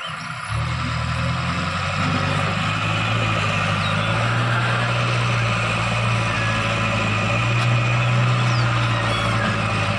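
JCB 3DX backhoe loader's diesel engine working, picking up about half a second in and then running steadily and loud.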